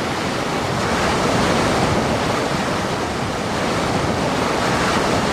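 Steady rush of sea water and spray breaking along a ship's hull as it cuts through waves under way, mixed with wind.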